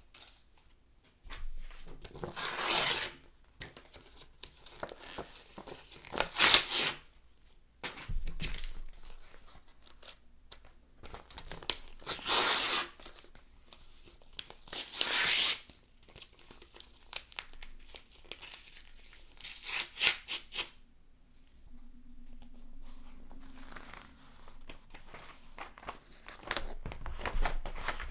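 Paper flyers being torn by hand: a series of separate rips a few seconds apart, each a short noisy tear. About 22 seconds in it changes to quieter, drawn-out tearing of magazine pages, which grows louder near the end.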